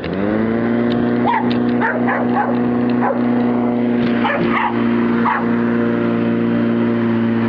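A lawnmower starts up and settles into a steady run. A Staffordshire bull terrier barks over it in short bursts, several times in the first two-thirds.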